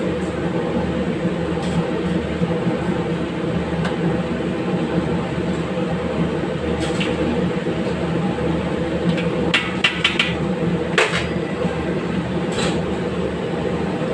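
Steady rumble of a commercial gas range running under a wok. On top of it are a few sharp metallic clinks of a ladle against the wok as curry is stirred, with a quick run of them about ten seconds in.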